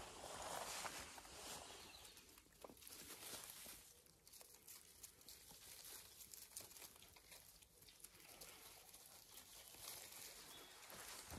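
Faint rustling and scuffling of puppies tussling over a stick in grass and dry leaves, with scattered small clicks and scrapes.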